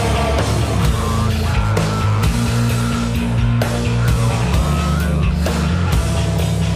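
Rock music with electric guitar, a heavy bass line and a steady drum beat.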